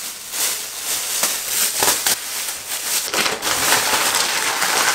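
Plastic shower cap crinkling and rustling as it is handled and pulled down over the head, an uneven crackle close to the microphone.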